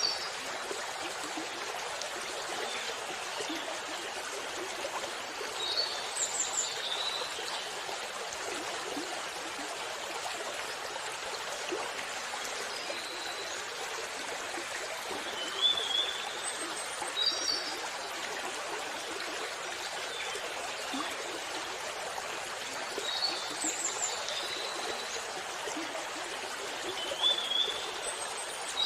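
Water pouring down a small waterfall, a steady rushing hiss, with birds chirping briefly every few seconds over it.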